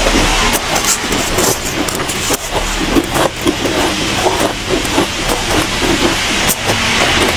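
Soft shaved ice being chewed close to the microphone: a continuous run of crisp little crunches, with a plastic spoon scraping and scooping through a tray of the ice.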